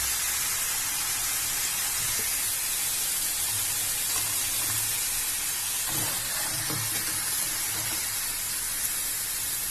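Cut potato sticks sizzling in hot oil during their second fry: a steady hiss.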